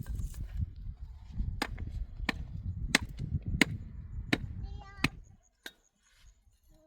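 Axe chopping wood: a series of sharp chops, about one every two-thirds of a second, over a low rumble. The chopping stops near the end.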